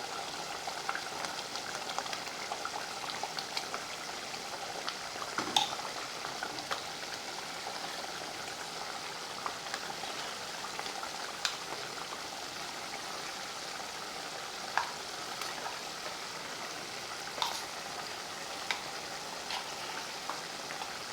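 Canned bully beef sizzling and bubbling in a pot of thickened tomato sauce as a steady hiss. A few sharp clicks of a spoon against the pot come as the meat is stirred and broken up into the sauce.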